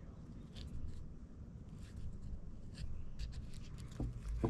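Faint scratchy rustling with scattered small ticks as artificial sinew thread is pulled and knotted against a dried pine needle coil basket.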